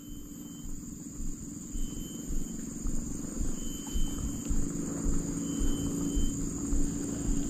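Tropical insects chirring steadily in a high, even drone, with a short higher call repeating every second or two, over a low, uneven rumble.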